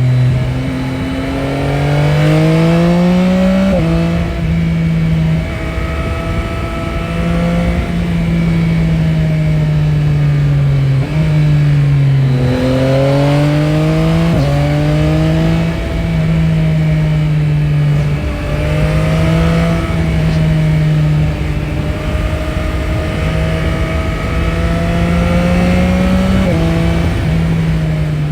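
Yamaha Tracer 9 GT's 890 cc CP3 inline three-cylinder engine pulling through the gears. Its pitch climbs under acceleration and drops sharply at an upshift about four seconds in, falls away and climbs again to another shift around twelve to fifteen seconds, then holds a fairly steady cruising pitch with small rises and dips.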